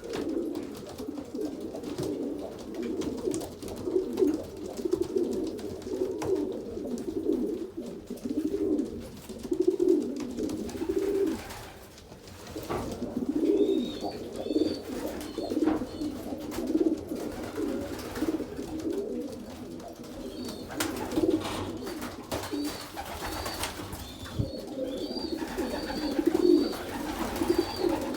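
Several pigeons cooing continuously, with short, high, repeated chirps joining in twice in the second half.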